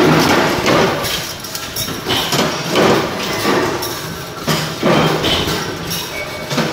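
A two-axis CNC wire bending machine at work, with irregular, repeated mechanical knocks and clanks about once a second as it feeds and bends the wire.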